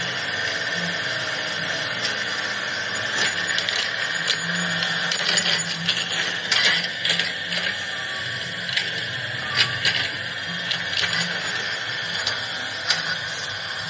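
Small electric motors and gearboxes of a toy remote-control excavator whirring steadily as it swings its arm and moves on its tracks, with scattered clicks and ticks through the middle and later part.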